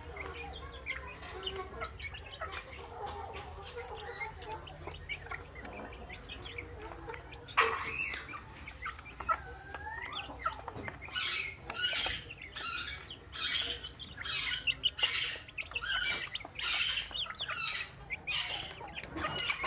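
Young chickens peeping and clucking softly as they feed. About halfway through, a run of sharp, scratchy strokes roughly every half second: the chicks pecking at grower feed.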